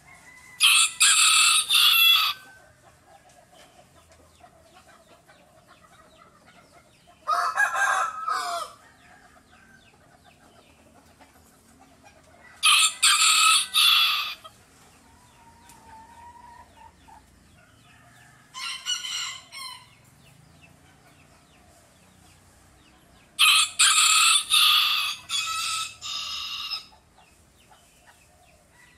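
Rooster crowing five times, about every five to six seconds, each crow a second or two long. The last crow, near the end, is the longest.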